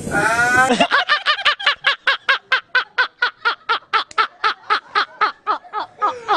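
Men laughing hard: a long, rapid run of high 'ha-ha-ha' bursts, about five a second.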